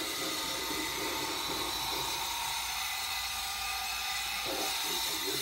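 Steady hiss of a television's sound picked up by a phone's microphone, with faint muffled background noise from the broadcast.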